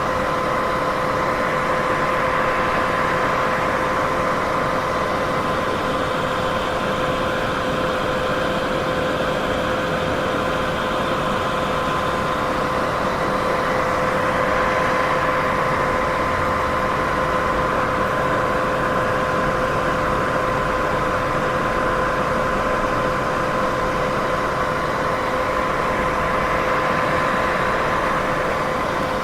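Steady white noise played as a sleep aid: an even hiss, fullest in the middle range, with a faint steady hum of two tones underneath. It swells and eases slowly every several seconds.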